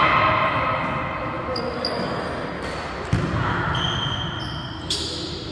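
Volleyball rally in a large gym hall: players shouting at the start, then the ball struck sharply about three seconds in and again near the end, echoing in the hall.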